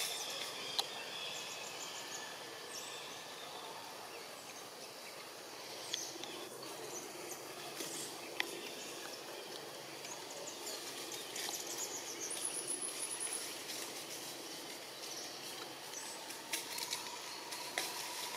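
Outdoor forest ambience: a steady faint hiss with scattered high bird chirps and a few small sharp clicks.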